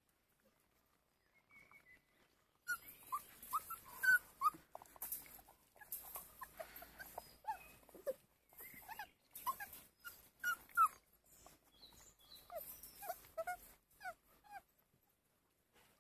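Schnauzer puppies whimpering and squeaking: many short, high cries in quick succession that begin a few seconds in and stop shortly before the end.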